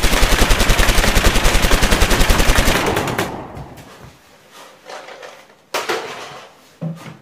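Rapid machine-gun fire, about a dozen shots a second for nearly three seconds, then fading away; two separate thumps follow near the end.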